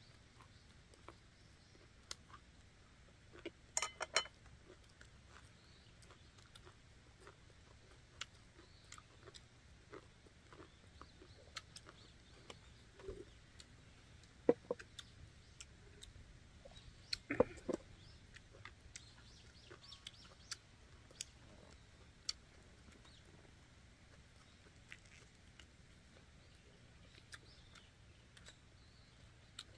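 Quiet eating sounds: chewing, with scattered small clicks and knocks of chopsticks, glass jars and dishes on a wooden table. A cluster of louder clicks comes about four seconds in, and a few louder knocks a little past the middle.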